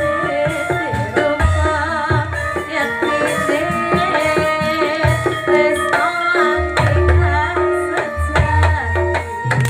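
Jaranan dance accompaniment music played live: hand-drum (kendang) strokes under ringing gamelan-type pitched percussion and a wavering melodic line.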